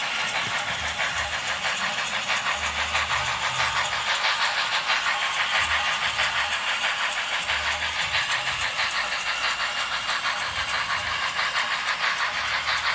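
HO-scale model train running along the track: a steady rattling whir of motor and wheels on the rails, with a fast run of fine clicks.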